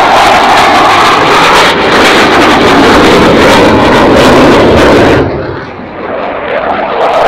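Twin-engine F/A-18 Hornet climbing past after takeoff, its jet engines making a loud, steady rushing noise. About five seconds in the sound drops away abruptly and turns dull and muffled for a second and a half, then loud jet noise returns near the end.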